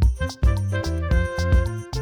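Upbeat children's background music with a steady beat of about two thumps a second under bright instrument notes.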